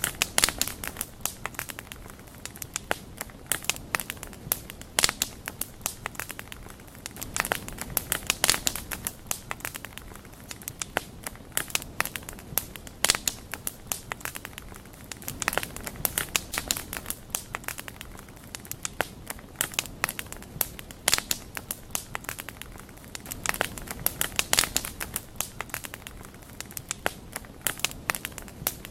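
Wood bonfire crackling: a dense, irregular run of sharp pops and snaps over a soft steady hiss.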